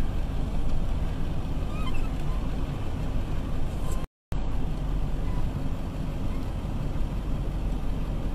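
Tow truck's engine running steadily with a low rumble, heard from inside the cab. The sound cuts out completely for a moment about four seconds in.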